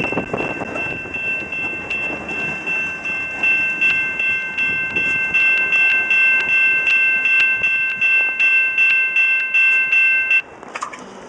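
Railroad crossing bell ringing in rapid, steady strokes while the last covered hopper cars of a freight train rumble and click over the crossing and roll away. The bell cuts off suddenly about ten seconds in as the crossing clears.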